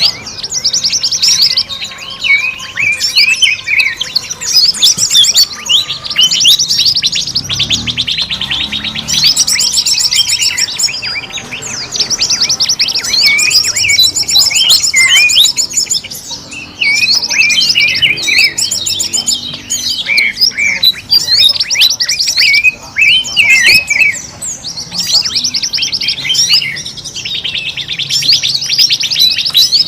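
Bird-lure recording of many small forest birds calling at once: dense, overlapping rapid trills and sharp chirps with no break.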